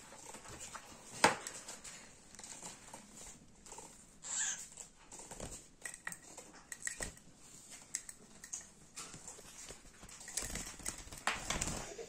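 Pet budgerigars giving a few short chirps among scattered taps on a wooden tabletop, with a sharp knock about a second in and rustling handling noise near the end.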